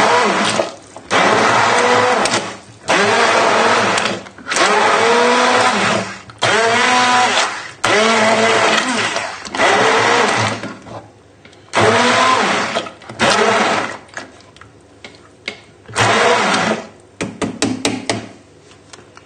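Electric stick blender in a saucepan of vegetable soup, run in about ten short pulses, each a second or two long. The motor's pitch rises and falls within each pulse as it chops the vegetables to blend about half the soup, leaving chunks. The pulses stop a few seconds before the end, followed by a run of light clicks and knocks.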